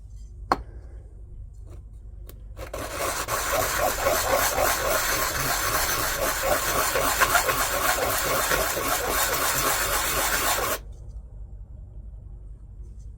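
A 3D-printed plastic part rubbed back and forth on sandpaper to sand its edge flat. The sanding starts a few seconds in, runs for about eight seconds and stops abruptly, after a single click near the start.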